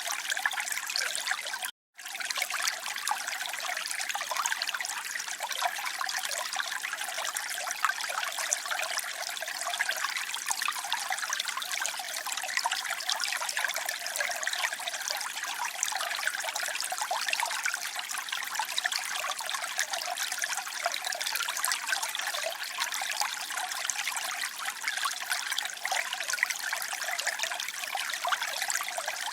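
Running water trickling and splashing steadily, thin and bright with almost no low rumble. The sound cuts out completely for a moment about two seconds in, then resumes unchanged.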